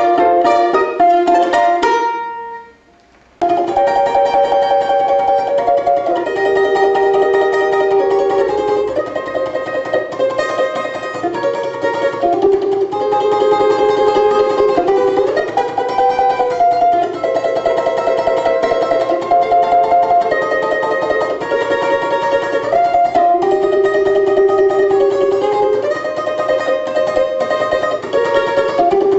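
Background music played on plucked string instruments, with quick changing notes. It falls away briefly about three seconds in, then starts again.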